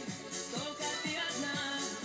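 Music played back from a cassette on a 1982 Graetz HSC 4000 stereo cassette deck, with a steady beat of about two strokes a second. It is a test playback of a recording just made on the deck.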